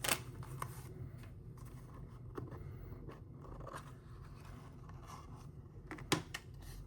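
Packaging of a lock pick being handled and opened by hand: scattered sharp clicks and faint scraping, with the loudest click right at the start and another about six seconds in.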